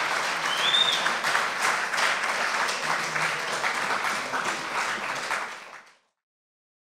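Audience applauding after a song, the clapping fading out about six seconds in. A short high whistle-like tone sounds briefly near the start.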